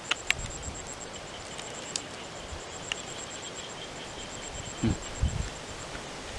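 An insect chirps high in a rapid even pulse, several a second, over outdoor background noise, with a fainter second trill for a couple of seconds. The chirping stops near the end. There are a few small clicks and a couple of brief low thumps about five seconds in.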